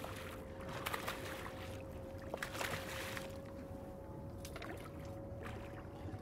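Water splashing as a hooked small mulloway (jewfish) thrashes at the surface beside the boat, in two bouts, the first about half a second in and the second around two and a half seconds in, over a steady hum.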